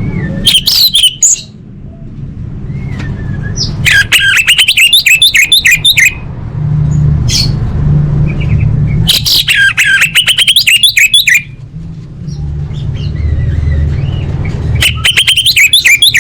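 Orange-headed thrush (anis merah) singing: four loud phrases of rapid repeated notes, each one to two seconds long, a few seconds apart. A low steady hum runs underneath.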